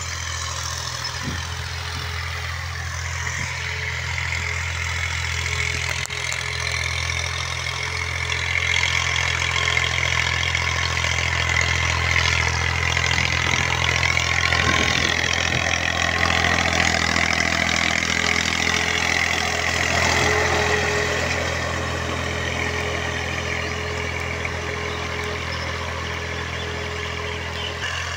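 Farm tractor's diesel engine running steadily while pulling a plough, growing louder through the middle and easing back toward the end.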